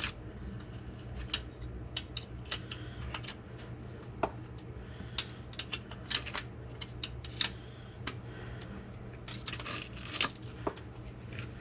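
Hand tools clicking and clinking irregularly against metal as the transmission mount bolts are worked loose, over a low steady hum.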